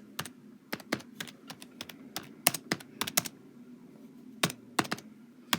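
Typing on a standard computer keyboard: a run of quick, irregular key clicks, a pause of about a second roughly three seconds in, then a few single keystrokes near the end.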